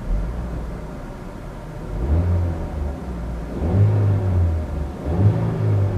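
Engine of a 2018 Chevrolet Equinox LT, parked and heard from inside the cabin, idling and then revved three times, rising in pitch and falling back each time.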